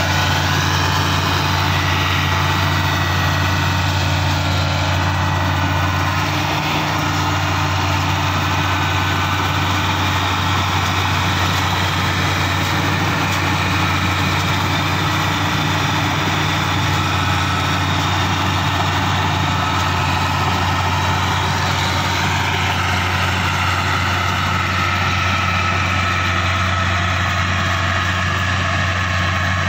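Steady drone of diesel engines: a tractor close by and a CLAAS Crop Tiger 30 Terra Trac combine harvester cutting and threshing rice. A low, even engine hum runs under a dense mechanical rush, with no breaks.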